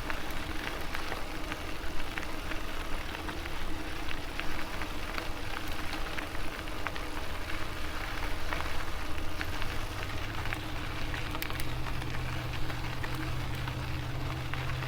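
Ride noise from an electric bike under way: a steady motor and drivetrain hum over the rush of tyres and air, with scattered light clicks and rattles. A second, lower hum joins about ten seconds in.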